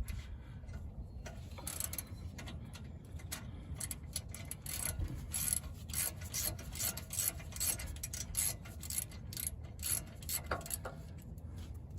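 Hand tool and T45 bit working the rear brake caliper guide pins: a run of quick, irregular metal clicks with some scraping.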